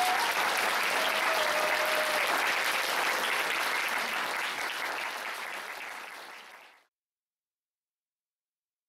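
Audience clapping and cheering, dense and steady, then fading away to nothing just before seven seconds in.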